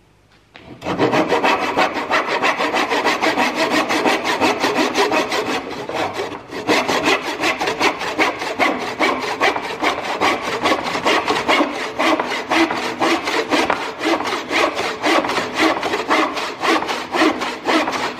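Hand backsaw cutting through a pine board in rapid, even back-and-forth strokes, with a short pause about six and a half seconds in. The saw's teeth have not yet been sharpened: this is a test of how well it cuts as it is.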